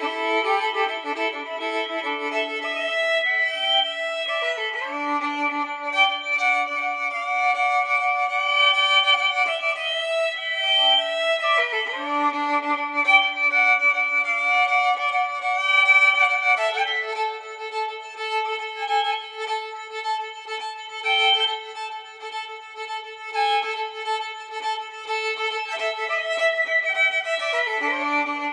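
Violin music: bowed notes held for a second or more, often two at once, with some sliding between pitches.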